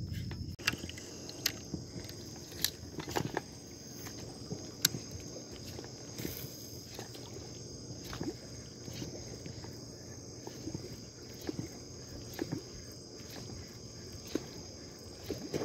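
Steady high-pitched chirring of night insects, with scattered light knocks and clicks.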